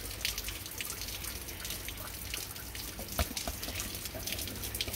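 Water dripping and splashing on a wet driveway: an irregular patter of small drips and splashes over a steady wet hiss, with one sharper tick about three seconds in.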